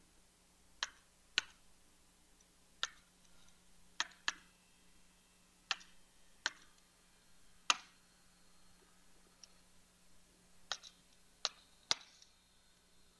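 About a dozen sharp, irregularly spaced clicks as keys are pressed on a TI-30XS MultiView calculator emulator to enter 5 + 25/4.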